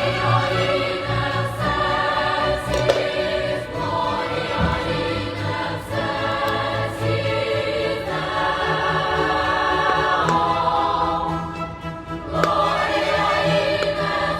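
Background music: a choir singing sustained, held phrases.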